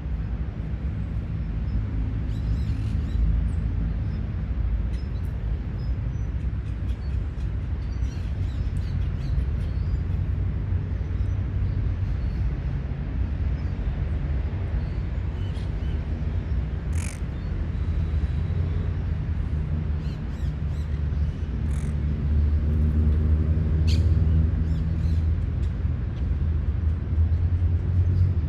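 City park ambience: a steady low rumble of road traffic, with a vehicle engine passing more loudly about two-thirds of the way in. A few short, sharp bird calls sound over it.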